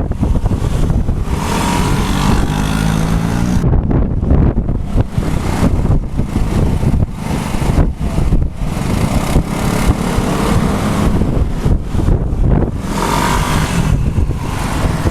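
Typhoon-force wind gusting hard across the microphone in a heavy, buffeting rumble, with traffic underneath; a motor vehicle engine rises in pitch about two seconds in.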